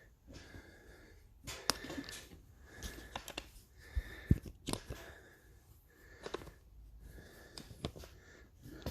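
Scattered clicks and knocks of things being handled and set down, with one heavier thump about four seconds in.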